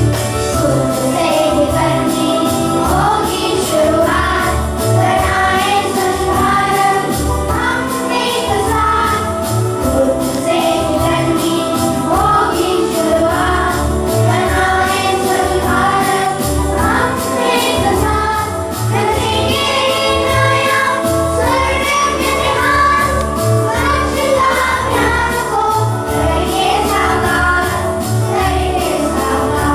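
A song: singing over instrumental accompaniment with a steady beat.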